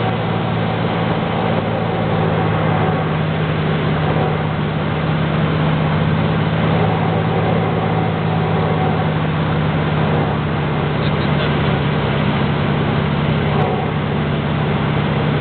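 Cessna Turbo 206's single piston engine and propeller running steadily on final approach, heard inside the cabin as a loud, even drone with a low hum.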